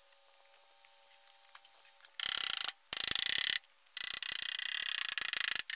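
Stick electrode arc welding: after about two seconds of quiet, the arc strikes and crackles in three bursts, the first two short and the last nearly two seconds long.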